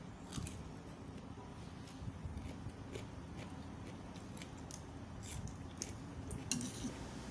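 A person chewing a mouthful of food close to the microphone, with scattered small crunches and wet mouth clicks.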